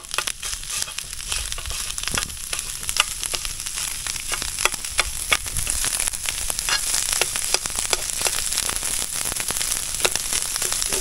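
Kokoreç (chopped lamb intestines) frying: a steady sizzling hiss with frequent sharp crackles and pops of spitting fat.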